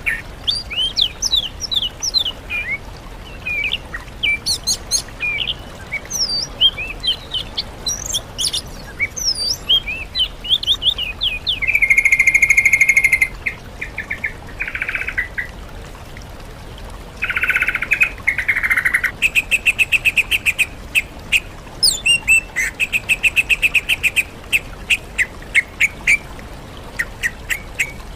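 Bird-song master recording combining sooty-headed bulbul, oriental magpie-robin and greater green leafbird song: quick whistled chirps and sliding notes, a buzzy trill about twelve seconds in, and fast runs of repeated chattering notes through the second half.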